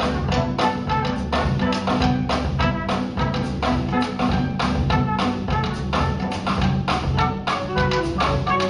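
Small jazz band playing live: a drum kit keeps a steady beat of cymbal and drum strokes under bass and piano.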